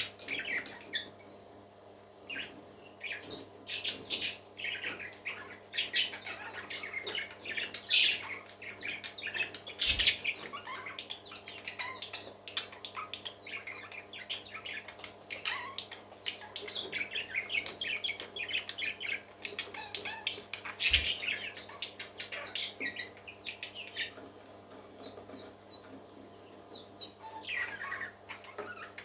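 Parrots chirping: many short, high chirps one after another, with two sharp knocks about ten seconds apart, over a steady low hum.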